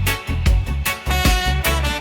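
Instrumental passage of a reggae song: a steady drum and bass beat with a strong hit about every 0.8 s under sustained melodic tones, without singing.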